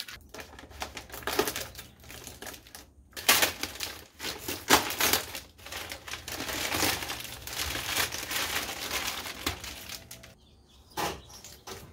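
Masking tape being peeled off painted sheet metal while plastic masking sheet crinkles as it is pulled away, in irregular tearing and rustling bursts. It mostly stops about ten seconds in, with one more rustle near the end.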